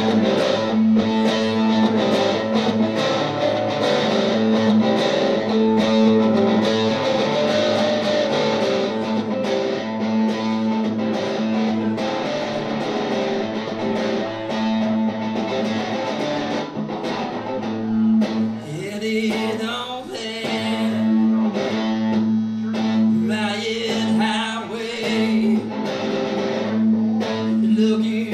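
Amplified acoustic guitar played solo in a fast, steady picked rhythm over a droning bass note. A man's singing voice joins about two-thirds of the way through.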